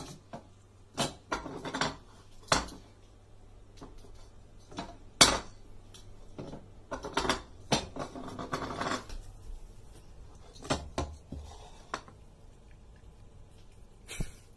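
A ceramic bowl scraping and knocking on a wooden floor as it is dragged about, in short, irregular strokes; the loudest comes about five seconds in.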